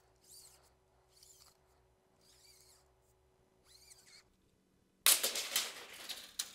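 Steel blade of a FastCap tape measure being fed out of its case in small pulls, with faint sliding sounds. About five seconds in comes a much louder clatter lasting a little over a second, as the long extended blade gives way and droops onto the bench.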